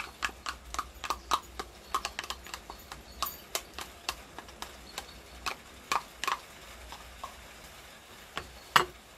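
A metal spoon clicking and scraping against a small jar and a plastic mixing bowl as mustard is scooped out and knocked off into the bowl: a quick run of irregular sharp taps, thinning out about halfway, with one louder knock near the end.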